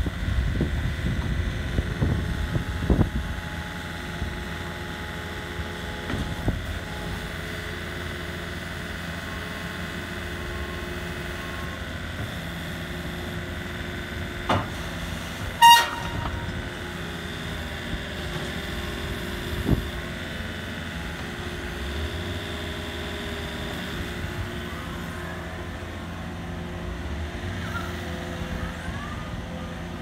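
Komatsu PC40MR-3 mini excavator's diesel engine running steadily while it works, louder with a few clanks in the first three seconds. A single short horn beep sounds about halfway through.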